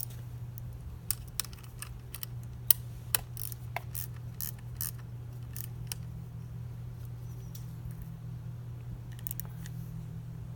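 Scattered light clicks and taps of a hand tool on a small metal screw as a turn-signal mounting screw is tightened down, irregular, with a short cluster near the end, over a steady low hum.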